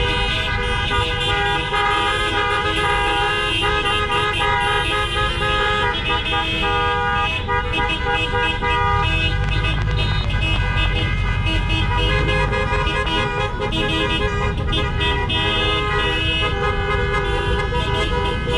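Many car horns honking at once, long overlapping blasts in several different pitches, over a steady low rumble of traffic.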